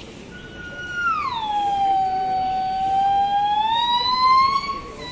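Buff-cheeked gibbon singing: one long whistled note that drops steeply in pitch about a second in, holds low, then slowly rises again, with a brief break near the end.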